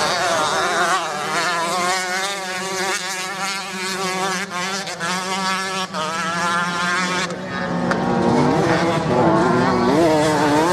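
Off-road motorcycle engines racing on a sand course: a loud engine note warbling rapidly up and down as the bikes ride past, then rising in pitch near the end as a bike accelerates, over a steady low drone.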